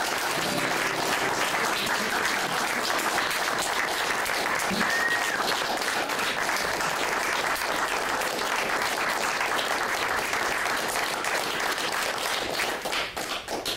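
Small audience applauding, a dense steady clapping that thins out and dies away near the end.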